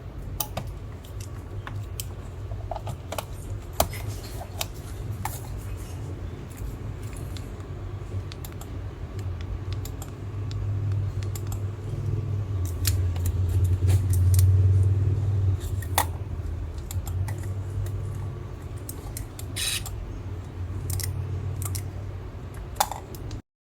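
Scattered light clicks and small rattles of objects being handled, over a steady low hum that swells for several seconds around the middle.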